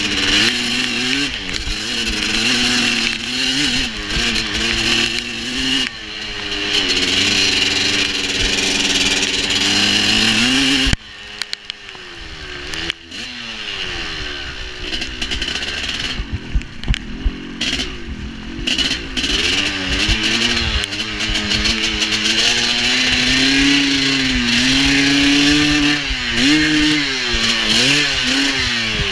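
Dirt bike engine revving up and down as it is ridden, the pitch rising and falling with the throttle. About eleven seconds in the throttle is shut and the engine drops low and quiet, then builds again, with a few sharp knocks a little past halfway.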